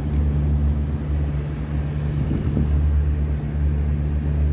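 Pontoon boat's motor running steadily at low speed, an even low rumble.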